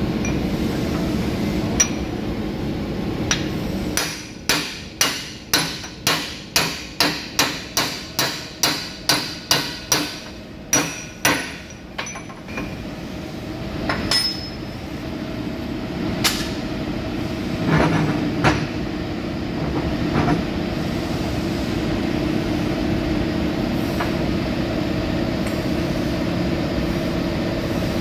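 Hand hammer striking steel parts of a forklift steering axle: a quick run of about seventeen sharp metal-on-metal blows, a little over two a second, then a few single blows spaced seconds apart. A steady machine hum runs underneath.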